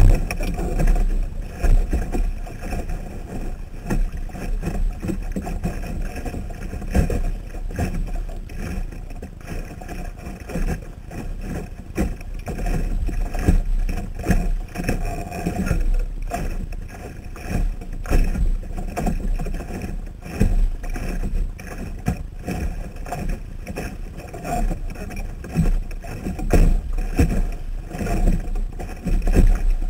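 Water rushing and slapping against a Sunfish sailboat's hull under sail, with irregular knocks and splashes and a low rumble, picked up close by a camera mounted on the boat.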